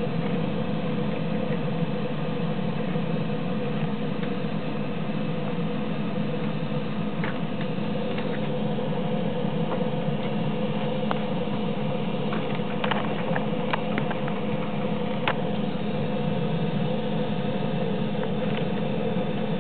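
B02 wire cut-and-strip machine running with a steady electric hum, with a few scattered sharp clicks, mostly in the middle stretch.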